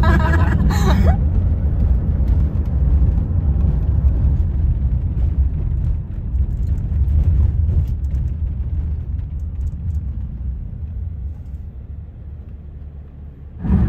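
Steady low rumble of a car driving, heard from inside the cabin, growing quieter over the last few seconds.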